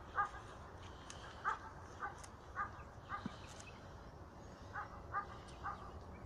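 A dog barking: about eight short barks, five in quick succession, then a pause, then three more.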